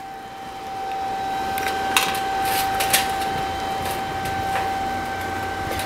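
Steady mechanical hiss with a constant thin whine from running shop machinery, with a few light clicks about two and three seconds in.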